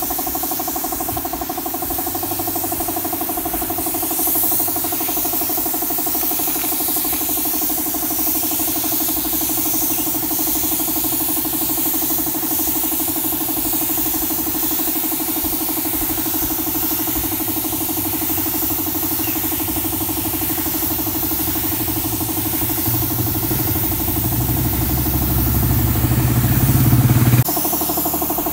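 Air compressor running steadily, feeding a siphon-cup spray gun whose air hiss sits on top of it as a finish coat is sprayed onto wood. A low rumble builds up near the end and stops abruptly.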